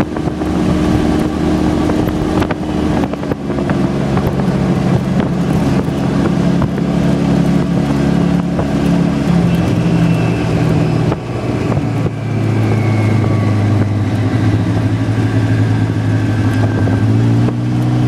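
Polaris RZR side-by-side UTV engine running at cruising speed with wind rushing past. Its steady drone shifts in pitch a few times, settling lower about ten seconds in and rising again near the end.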